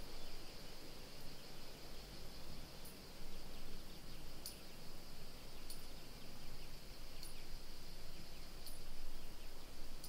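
Summer forest ambience: insects keeping up a steady high-pitched drone, with sharp ticks about every second and a half and a few faint short chirps.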